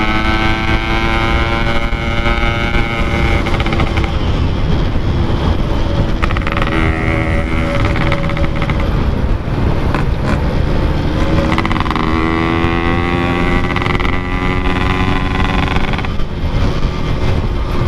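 Yamaha RX-King two-stroke motorcycle running through a Packing Power aftermarket exhaust while riding, its pitch rising and falling several times with the throttle and gear changes.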